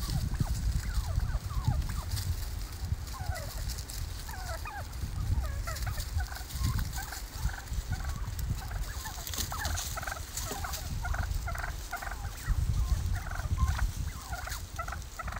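A flock of wild turkeys feeding and calling, with many short calls overlapping one another without a break. A low rumble runs underneath.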